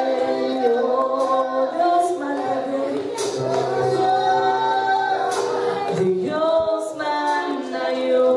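Worship team and congregation singing a worship song together, female voices leading, with long held notes.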